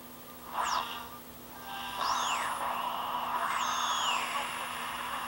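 Homemade 1T4 valve regenerative shortwave receiver being tuned. Whistles glide down and up in pitch as the dial sweeps past station carriers, over hiss and muffled broadcast audio. The audio drops out briefly at the start, then one falling whistle is followed by several rising and falling ones.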